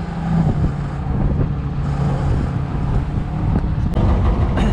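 Fishing boat's inboard engine running steadily, a low even drone.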